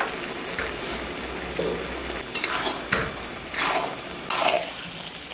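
A spatula scraping and stirring grated coconut and date-palm jaggery cooking down in milk in a pan, about five scrapes over a steady sizzle: the sweet filling for dudh puli pitha being reduced.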